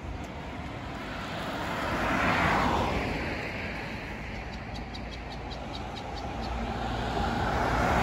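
Road traffic: vehicles pass with tyre and engine noise. One swells and fades about two and a half seconds in, and another, a pickup truck, comes up near the end.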